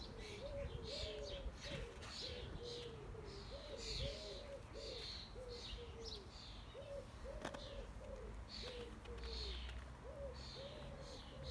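Birds calling: a steady run of short, low cooing notes, about two a second, with higher chirps over them.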